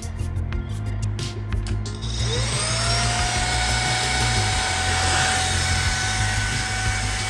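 A few handling clicks, then a Homeika cordless stick vacuum switches on about two seconds in. Its motor whine rises and settles into a steady whir with a rushing airflow hiss.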